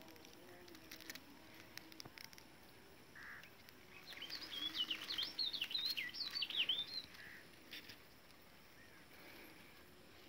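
A small bird singing a quick run of high, twittering chirps from about four to seven seconds in, over faint outdoor background noise with a few light clicks.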